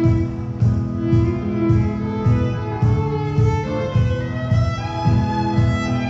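Fiddle and acoustic guitar playing a contra dance tune: the fiddle carries the melody over guitar strums that keep a steady beat about twice a second.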